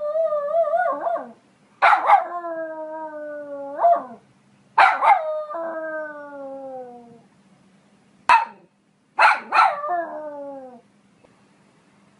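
Poodle barking and howling: short sharp barks, each drawn out into a long yowl that slowly falls in pitch, four times, the last after a quick double bark, with a quiet gap near the end.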